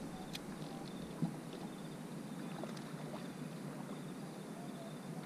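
Small waves lapping and washing against a bass boat's hull, with faint ticks and one sharp tap about a second in.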